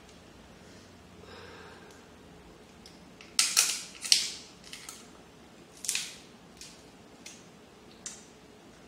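Close-up eating sounds of picking at and eating crab legs: a few sharp sucks and smacks at the mouth, the loudest pair about three and a half to four seconds in, with a couple of fainter ones later.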